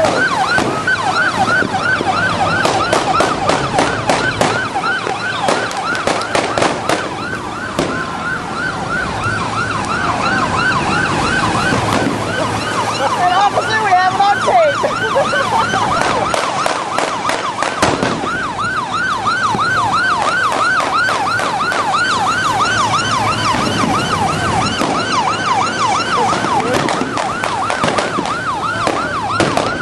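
An electronic siren yelping rapidly, rising and falling about four times a second, over the steady rush of wind and water past a moving boat. Scattered sharp cracks sound in the first several seconds.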